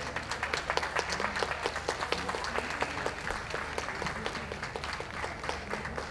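Audience applauding, many hands clapping steadily and thinning out near the end.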